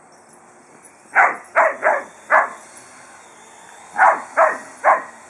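Whippet barking: four short barks in quick succession about a second in, then three more about four seconds in.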